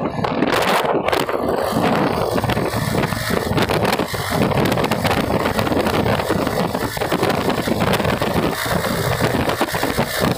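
Wind rushing and buffeting over the microphone of a motorcycle at road speed, with motorcycle engine and tyre noise underneath.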